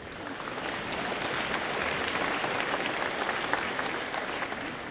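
Audience applauding, building up over the first second and tapering off near the end.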